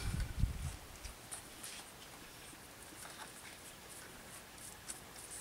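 A brown hen held in hand while her head feathers are parted, making a few faint, scattered sounds, with low handling thumps in the first second.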